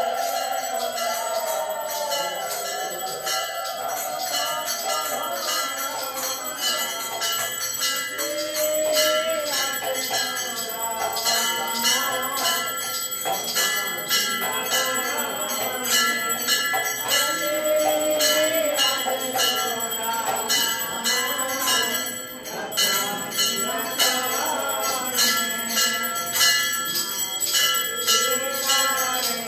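Brass temple hand bell rung rapidly and continuously during an aarti, its strikes overlapping into a steady ringing, over a devotional melody.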